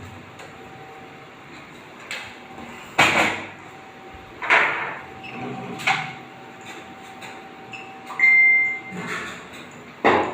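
A series of sharp clunks and knocks, roughly one every second or two, over a steady faint hum. A short high squeal comes about eight seconds in.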